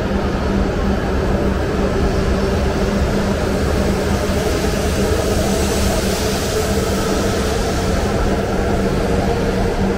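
E5 series Shinkansen train in motion: a steady rumble and rushing noise with a low hum, holding level throughout.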